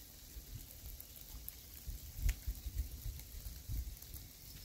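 Light rain: a faint patter of drops with a few separate ticks, one sharper about two seconds in. Soft gusts of wind rumble now and then on the phone's microphone.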